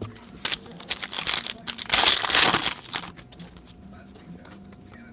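Foil wrapper of a hockey card pack crinkling and tearing as it is opened, in short crackles with a denser burst about two seconds in, then stopping about three seconds in.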